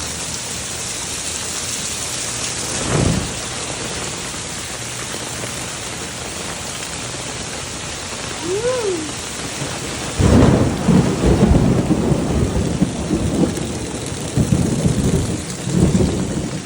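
Heavy rain pouring down in a steady hiss. About ten seconds in, a loud low rumble of thunder sets in and rolls on in uneven waves.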